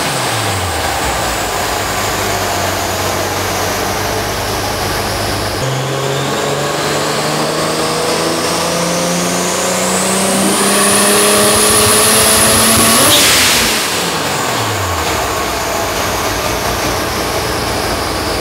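Turbocharged BMW E46 engine on a chassis dyno. It idles, then climbs steadily in revs under load for about seven seconds with a rising high whine, and drops back to idle when the pull ends.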